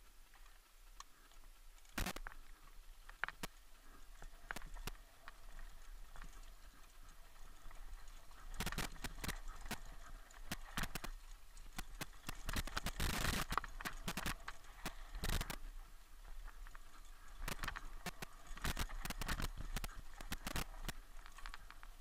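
Downhill mountain bike riding down a dirt forest trail, heard from a helmet camera: scattered clicks and knocks at first, then from about eight seconds in a dense rattle of the bike and tyres over rough ground, loudest around thirteen seconds.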